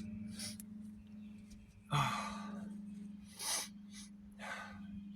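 A person breathing hard: several short, sharp breaths in and out, the loudest about two seconds in. A steady low hum runs underneath.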